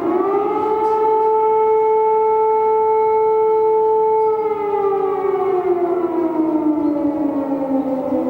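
Civil defense siren wailing loudly: its pitch rises at the start, holds steady for a few seconds, then slides slowly down, and begins to climb again at the very end.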